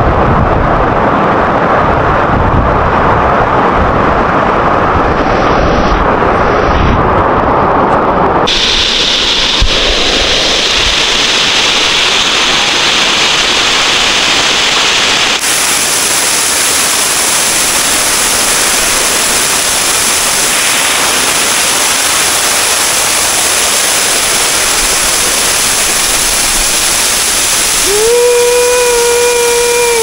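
Steady rushing noise that changes abruptly twice as the footage cuts, ending in the even, full rush of a waterfall. Near the end a person's voice calls out one held note that falls away.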